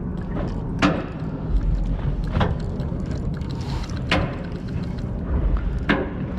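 Low steady rumble of a fishing boat underway, with four sharp knocks spaced about a second and a half apart.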